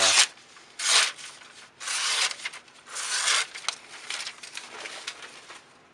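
Four rough rubbing or scraping strokes, each about half a second long and about a second apart, then fainter rustling.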